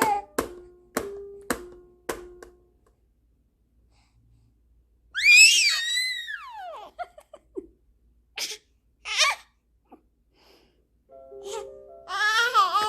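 Baby's vocal play: a loud, very high-pitched squeal about five seconds in that slides down in pitch, then two short breathy gasps and, near the end, babbling. A few light taps come in the first couple of seconds.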